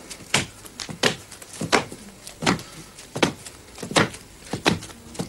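A man doing the Kalaripayattu crocodile walk, a low push-up-like move along the floor, making sharp, even strokes of sound in time with the movement, about one every 0.7 seconds, some of them doubled.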